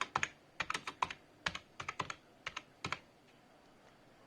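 Typing on a Zebronics Zeb-K35 wired USB keyboard: a quick run of key clicks for about three seconds, then the typing stops.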